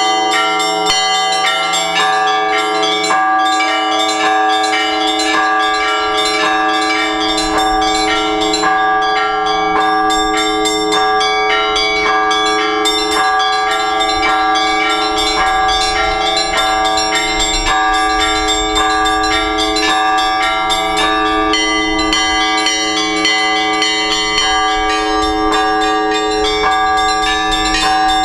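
Orthodox church bells hand-rung together in a continuous peal. Several bells of different pitch are struck in quick succession, about three strokes a second, over the lasting hum of the larger bells.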